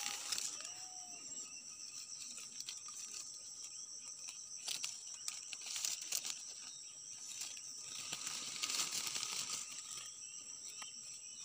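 Clove tree leaves and twigs rustling and crackling as a hand pulls bud clusters toward the phone, over a steady high-pitched drone of insects.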